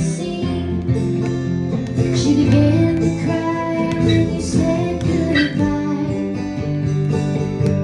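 Acoustic cutaway guitar being played, picked and strummed chords with the notes ringing on over one another.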